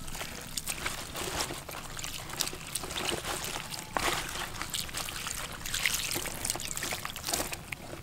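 Water poured from a clay pot trickling and splashing onto cut pieces of young jackfruit, with hands rubbing and turning the wet pieces to wash them, giving many short wet handling sounds.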